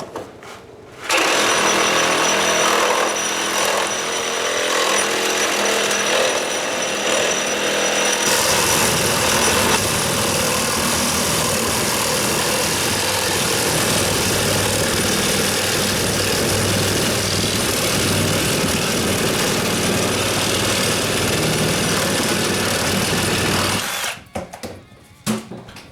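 Cordless reciprocating saw (Milwaukee M18 Fuel Sawzall) with a bimetal blade cutting lengthwise through a nail-filled pressure-treated 2x6, sawing through wood and nails alike. It starts about a second in and runs steadily, turns harsher and brighter about eight seconds in, and stops near the end.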